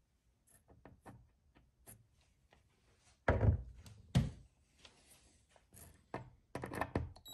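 Handling knocks and light clicks on a 3/4-inch melamine board as a wood screw is set into its countersunk pilot hole and the driver bit is fitted to it. A few faint clicks, two louder knocks about three and four seconds in, then a quick cluster of clicks near the end.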